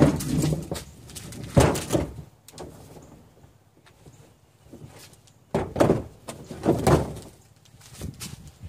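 Garbage can being handled and set in place: several hollow knocks and thumps, a pair about a second and a half in and another pair around six to seven seconds. A low steady hum fades out just at the start.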